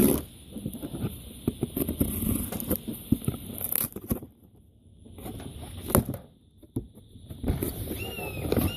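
Rustling, scraping and clicking of a helmet box and its packaging being handled, with a few sharp knocks. Near the end a hawk calls several times in quick succession, each a short scream falling in pitch.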